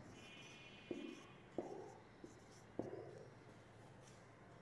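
Faint strokes of a marker pen writing on a whiteboard: three short scratches about a second apart, with a few fainter touches later.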